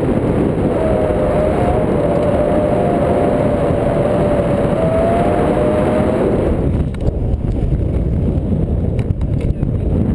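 Wind rushing loudly over the microphone of a pole-mounted camera on a tandem paraglider in flight, with a wavering whistle over the rush for about the first six seconds. About two-thirds in the whistle stops and the rush turns lower and choppier.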